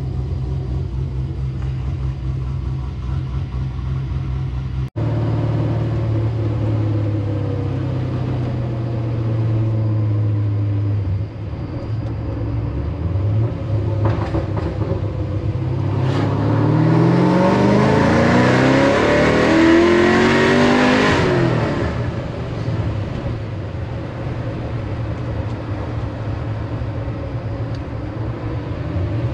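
Pontiac GTO's V8 engine running at a low, steady note, then revving up with a rising pitch for about five seconds past the middle before dropping back to a steady run.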